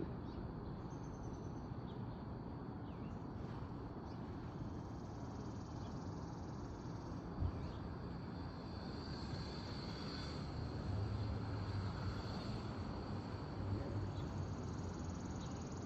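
Quiet outdoor background: a steady low rumble with a faint, high, steady buzz that is strongest in the middle, and one small click about seven and a half seconds in.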